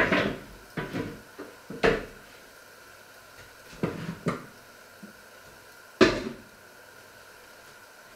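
Irregular hard knocks and clatters of kitchen objects: a loud one at the start, a few around one to two seconds in, three quick ones around four seconds, and another loud one about six seconds in.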